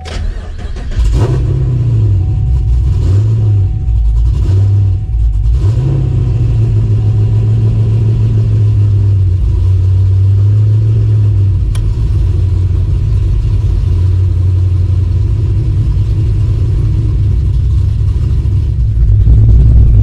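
A fifth-generation Chevrolet Camaro's 6.2-litre V8 with long-tube headers starts up on a freshly installed, heat-wrapped starter. It is blipped about four times, then settles into a steady rumbling idle and gets louder near the end.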